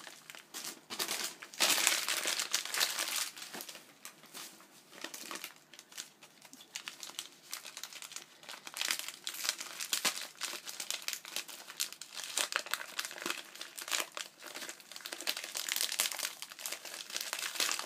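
Gift wrapping being crinkled and pulled open by hand, a busy paper crackle that comes in bursts, loudest a couple of seconds in.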